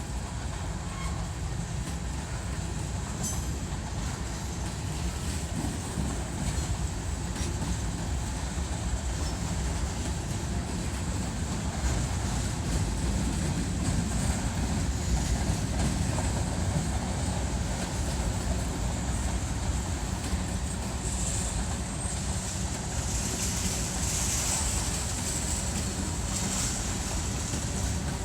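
Empty freight cars of a grain train rolling past: a steady rumble of wheels on rail. A brighter hiss rises over it for several seconds near the end.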